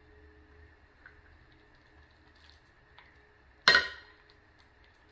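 A single sharp knock with a short glassy ring, about two thirds of the way in: a wooden spoon set down against a glass mixing bowl. A few faint taps of handling come before it.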